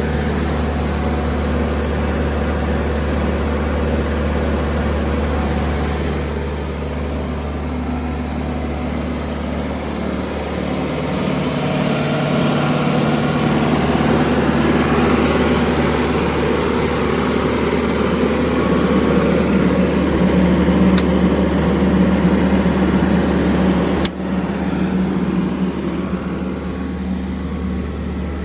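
Sullair 185DPQ portable air compressor's diesel engine running steadily. A third of the way in it picks up speed and grows louder, then settles back with a sudden drop a few seconds before the end.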